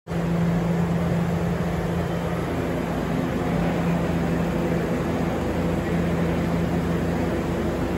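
Steady low hum over an even rushing noise from an electric train standing at the platform with its doors open, its onboard equipment running.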